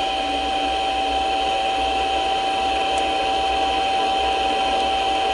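Mini lathe running at a steady speed, a steady whine from its motor and drive, while a spring-loaded form tool takes a cut on 1018 steel rod.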